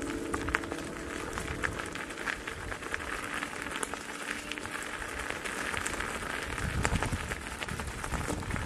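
Electric unicycle tyre rolling over a dirt and leaf-littered trail: a steady crackle of many small ticks and pops from grit and twigs, with a brief low rumble about seven seconds in.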